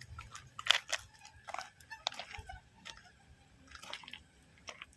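Faint footsteps crunching on dry ground, with a few irregular crackles and clicks.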